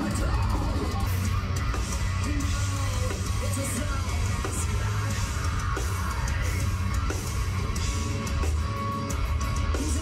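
Heavy metal band playing live on stage: electric guitars, bass guitar and drum kit.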